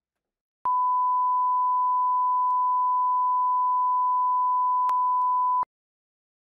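A single steady pure test tone, the line-up tone of a countdown leader, held for about five seconds and then cutting off suddenly.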